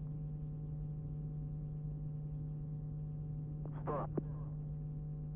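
Steady low electrical hum on the broadcast audio feed, with faint steady higher tones over it and a brief snatch of a voice about four seconds in.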